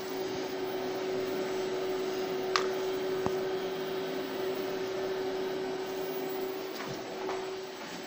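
Oakland SP-200 inverter welding machine switched on and idling with no arc struck, its cooling fan running as a steady whir with a steady hum tone. The hum drops away near the end.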